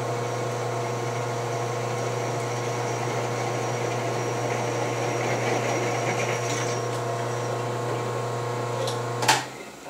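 Drill press motor running with a steady hum, the spindle turning without the bit touching the work, then switched off with a click near the end.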